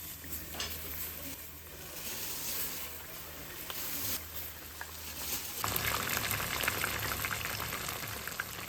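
Water sounds over a low steady hum, growing louder and busier with many small crackles about five and a half seconds in.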